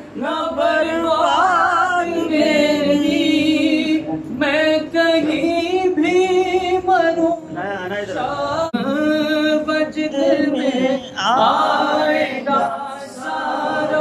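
Several voices singing together without instruments, in long wavering phrases.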